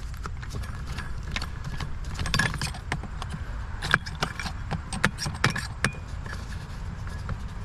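Scattered metallic clicks, knocks and scrapes from a hole saw on a drill being handled by hand, as the cut plug is worked out of the saw. A steady low rumble sits underneath.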